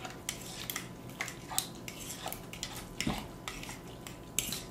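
A utensil clinking and scraping against a ceramic mixing bowl as a wet salmon mixture is stirred, in quick irregular strokes. One stroke about three seconds in is louder.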